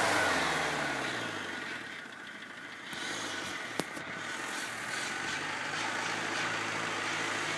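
Off-road 4x4's engine running at low speed, its pitch dropping in the first second, then holding fairly steady. A single sharp click about four seconds in.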